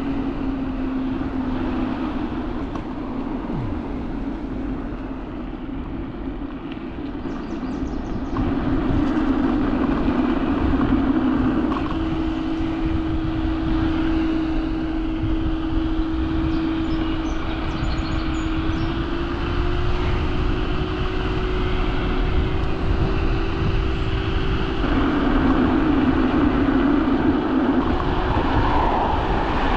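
Teverun Fighter Supreme Ultra electric scooter at speed: a steady motor whine over rushing wind and road noise. The whine's pitch steps up partway through and then creeps a little higher as the scooter speeds up.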